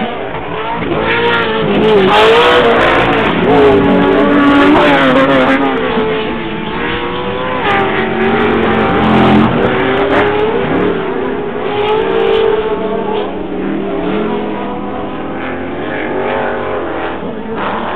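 Off-road race trucks' engines revving hard, several at once, their pitch winding up and dropping back as they race around a dirt short course. The sound is loudest a couple of seconds in.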